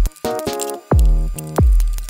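Background music with a steady beat: deep bass kick hits about every 0.7 seconds under sustained chords.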